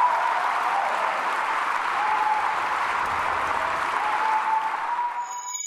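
Large audience applauding steadily in a hall, with a high held tone running over the clapping. A bright metallic chime starts right at the very end as the applause drops away.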